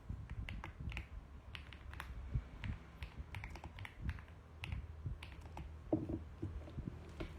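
Mechanical keyboard typing: irregular keystroke clicks, a few a second, with a short lower sound about six seconds in.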